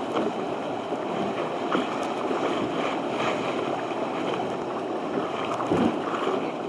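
Steady rush of wind and choppy sea water around a moving boat.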